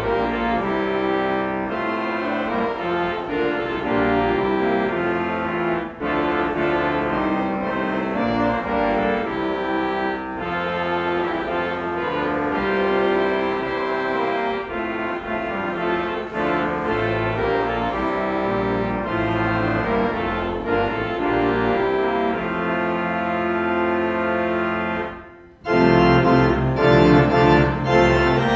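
Church organ playing sustained chords. About 25 seconds in there is a brief break, after which it resumes louder with deep pedal bass notes.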